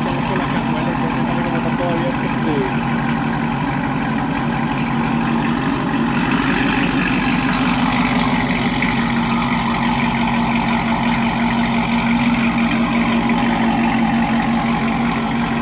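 Chevrolet TrailBlazer SS's 6.0 L LS2 V8 idling steadily through a newly fitted Corsa aftermarket exhaust, growing slightly louder about six seconds in.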